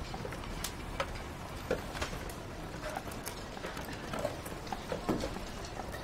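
Street bustle: scattered, irregular clacks and knocks from people walking, handcarts and cable spools being moved, over a steady low rumble.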